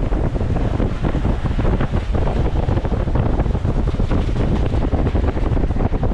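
Wind buffeting the microphone: a loud, steady low rumble with constant fluttering.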